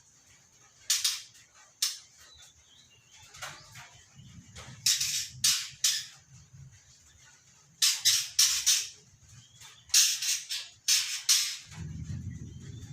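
Young white-rumped shama (about three months old) giving short, scratchy, rasping call bursts in irregular groups, a few single notes, then clusters of three or four.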